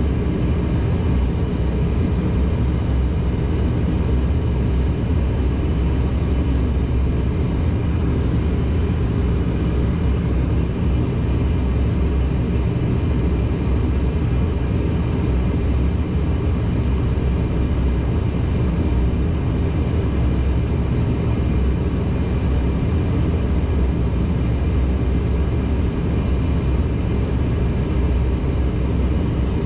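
Cabin drone of a Dash 8-400's Pratt & Whitney PW150A turboprop engines and propellers running steadily, heard from inside the passenger cabin. It is a constant low hum with steady tones and no change in level.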